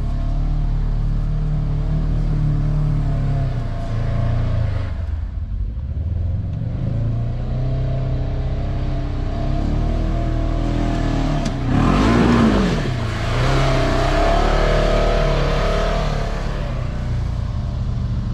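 Motor vehicle engine running under load with changing revs. About twelve seconds in the revs drop sharply and climb again, with a loud burst of rushing noise.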